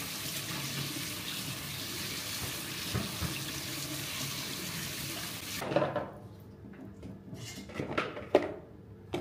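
Kitchen tap running, its stream splashing through bean sprouts in a metal mesh strainer into a stainless-steel sink. The water stops suddenly about six seconds in, followed by a few short knocks.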